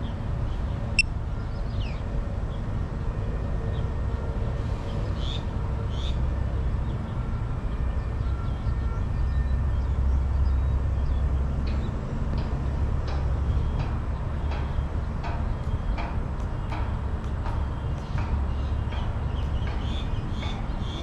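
Steady low outdoor rumble that swells and eases, with faint short chirps and ticks scattered through it.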